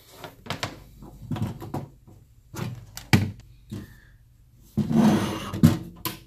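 Handling noises from a metal rack-mount power supply case on a plywood workbench: scattered knocks and clicks as it is turned around, a louder scrape about five seconds in, and sharp knocks near the end as the power cord's plug is pushed into its rear inlet.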